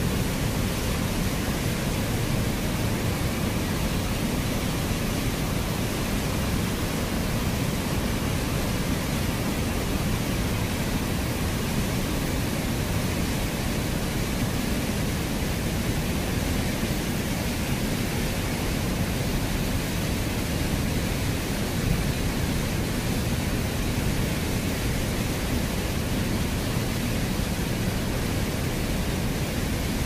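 Swollen, muddy floodwater rushing over a low weir, a steady, unbroken rushing noise.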